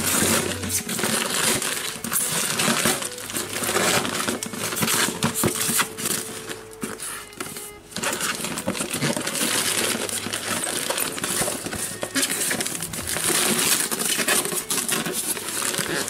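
Wrapping paper crinkling, rustling and tearing as it is pulled off a gift box by hand.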